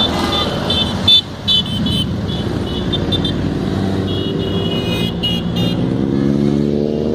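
A column of motorcycles riding past close by, their engines running together, with repeated short high-pitched beeps over them. Near the end one bike's engine revs up, its pitch rising as it accelerates away.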